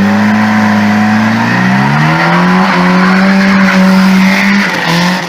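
Car engine revving hard: the pitch climbs about two seconds in and is held high, then dips briefly near the end and comes back up.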